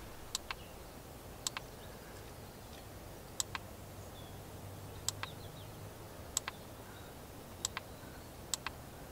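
Buttons on a small handheld remote for string fairy lights clicking seven times, one to two seconds apart, each press a quick double click as the lights are switched through their settings.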